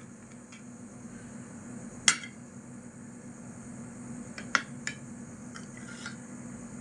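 Metal spoon clinking against ceramic plates while eating: one sharp clink about two seconds in, then a few lighter clinks a couple of seconds later, over a low steady hum.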